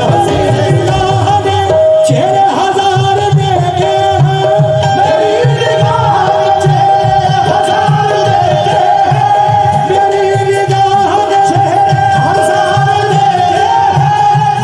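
Qawwali music: a harmonium plays a sustained melody over a steady hand-drum rhythm.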